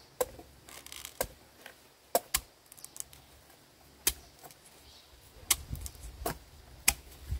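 About ten sharp knocks and clicks at uneven intervals, some in quick pairs, over a faint low background.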